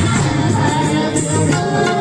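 A song with singing over a strong, steady bass line, played without a break.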